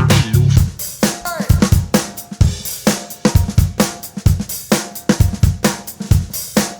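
Background music: an upbeat drum-kit groove of kick, snare, hi-hat and cymbal hits, with a bass line that drops out about half a second in.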